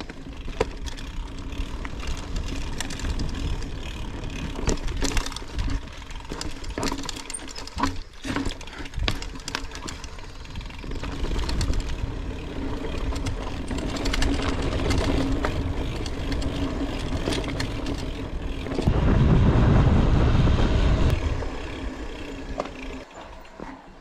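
Mountain bike descending a dirt forest trail: continuous rattling and knocking from the bike over roots and stones, and tyre noise on the dirt. A heavy rush of wind on the microphone comes toward the end.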